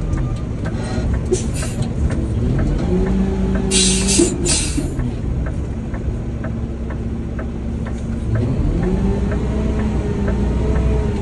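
Garbage truck engine running under load, its pitch rising and holding twice as it revs up. Short air hisses come twice along the way.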